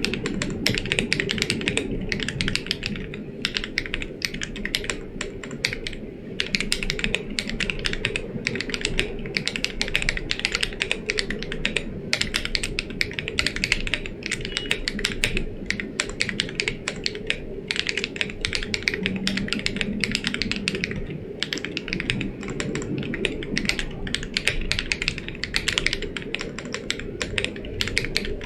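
Continuous typing on a Dolphin 80 gasket-mount TKL mechanical keyboard with Geon Black switches and Domikey Astronaut keycaps: a steady stream of fast keystroke clicks.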